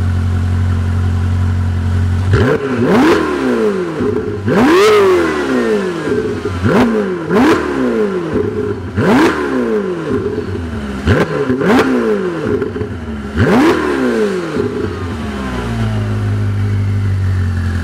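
Ferrari 488 Spyder's twin-turbo V8 through a loud Novitec Rosso aftermarket exhaust. It idles, then from about two seconds in is blipped about ten times in quick free revs, each falling straight back, and settles to idle again near the end.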